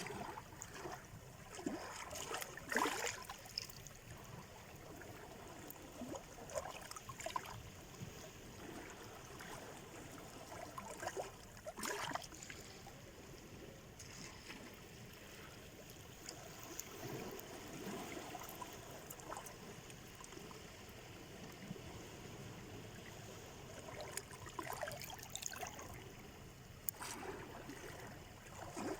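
Black Sea surf: small waves washing and trickling on the shore, with a few louder splashes now and then.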